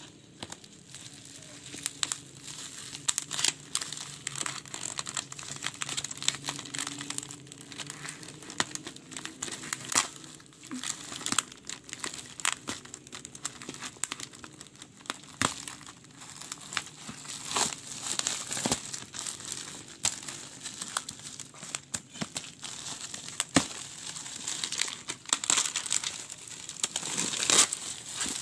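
Parcel packaging crinkling and tearing as it is unwrapped by hand, with many irregular crackles and snaps.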